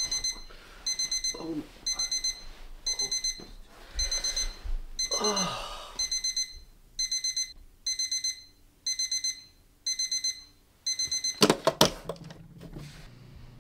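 Digital bedside alarm clock beeping in short bursts of four quick, high beeps, about one burst a second. Near the end the beeping stops and a hand knocks on the clock a few times as it is switched off.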